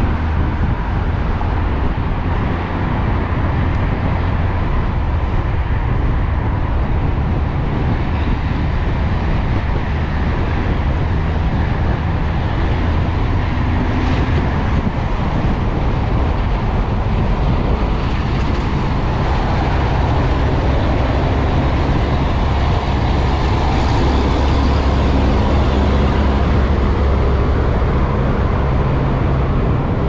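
Wind rush buffeting the camera microphone and tyre noise from an electric motorbike ridden along a road while gathering speed; there is no engine note, since the hub motor is electric.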